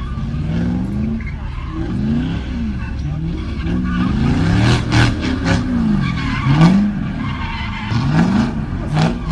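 Corvette engine revving up and down over and over while the car drifts, with tyres skidding. There are sharp cracks about halfway through and again near the end.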